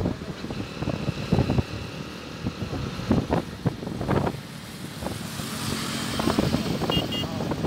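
Running noise of a moving road vehicle, heard from on board, rising and falling in uneven surges.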